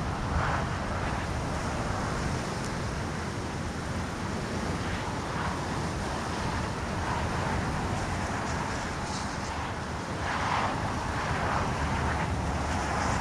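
Wind buffeting the microphone of a downed drone's camera lying in the grass, with a steady low rumble and leaves rustling now and then, swelling about ten seconds in.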